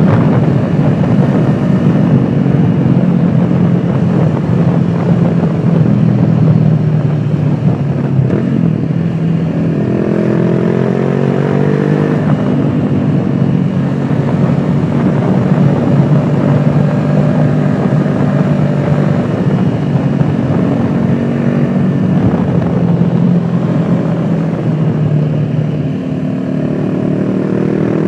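Honda CBR500R's 471 cc parallel-twin engine running under way, heard from a microphone in the rider's pocket. Its note holds steady for most of the time, rising with the revs about ten seconds in and again near the end.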